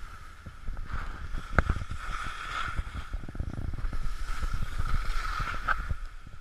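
Wind buffeting the microphone of an action camera carried downhill on skis, over a steady hiss of ski edges running on packed snow. There are two sharp knocks, about one and a half seconds in and again near the end.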